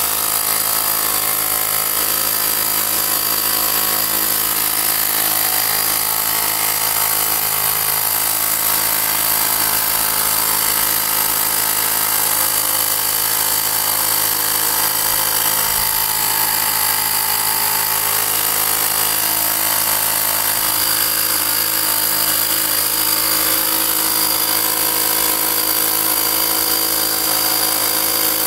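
A 12-volt 300 psi portable tyre-inflator air compressor running steadily, pumping air into a balloon.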